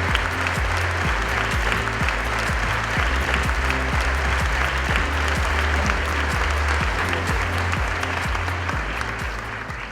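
Audience applauding over background music with a steady low bass; the applause thins out near the end.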